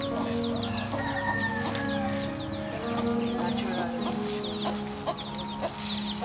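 Chickens clucking, with many short high chirps repeating throughout.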